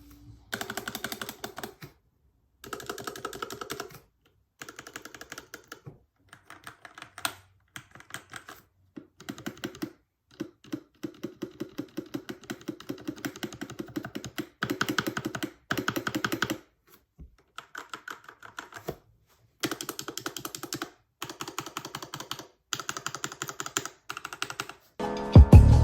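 Typing on a Keychron K6 mechanical keyboard with Gateron Red linear switches: rapid key clacks in runs of a second or two, broken by short silences. Music comes in near the end.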